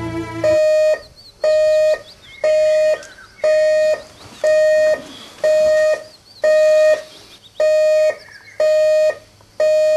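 Digital alarm clock going off: a steady series of single high beeps, about one a second, each lasting about half a second, beginning about half a second in.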